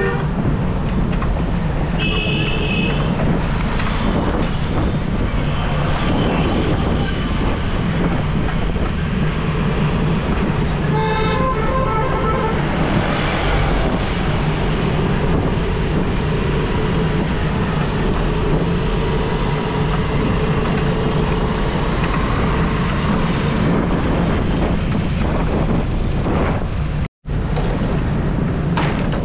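Road traffic heard from a moving bicycle: a steady low rumble of road and engine noise, with vehicle horns honking briefly about two seconds in and again around eleven to thirteen seconds in. The sound cuts out for a moment near the end.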